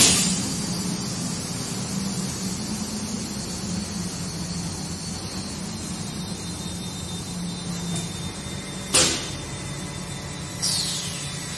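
Automatic glass loading arms of a CNC glass cutting machine working: a steady motor hum with a faint high whine. A sharp burst comes about nine seconds in, and a shorter one with a falling hiss comes near the end.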